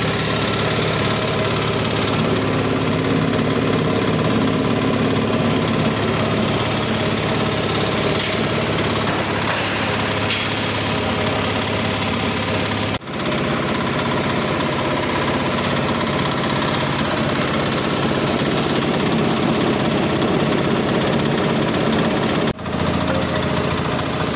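Small single-screw palm oil press running steadily under load, a continuous loud mechanical noise from its drive and screw as it presses palm fruit. The noise dips briefly twice, at cuts.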